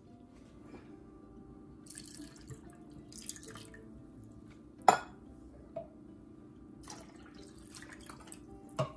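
Water poured from an emptied soup can into a plastic measuring bowl of creamed soup, splashing and trickling in short spells, with a sharp knock about five seconds in and smaller knocks of the can and bowl.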